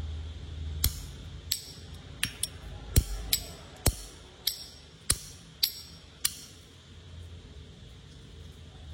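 Gas lighter being clicked over and over: about ten sharp metallic clicks, irregularly spaced, that stop after about six seconds. The lighter is out of butane.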